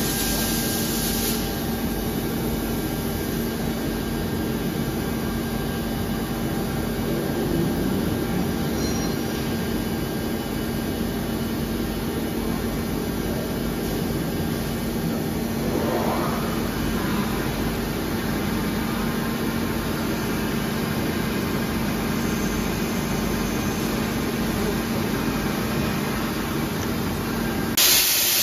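Cincinnati CFV-1300 vertical machining center powered up and running, a steady hum and mechanical drone with a faint short rising whine about halfway through. A brief loud hiss of air comes near the end.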